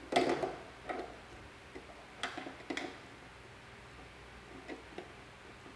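Irregular sharp clicks and light knocks of test leads being handled and plugged into the sockets of an electronics trainer kit, about six in all, the loudest at the very start.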